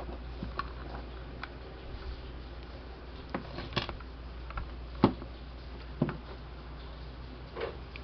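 Scattered clicks and knocks of a fan motor and its wires being handled and set down on a wooden workbench, the loudest knocks about five and six seconds in, over a steady low hum.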